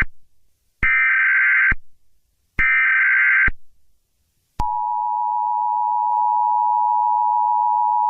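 Emergency Alert System alert tones: the end of one SAME header data burst and then two more, each just under a second long and about a second apart, followed about four and a half seconds in by the steady two-tone EAS attention signal, which cuts off abruptly near the end.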